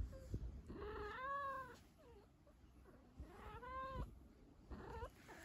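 Domestic cat meowing: two drawn-out meows that rise and then fall in pitch, about a second in and about three and a half seconds in, then a short one near the end.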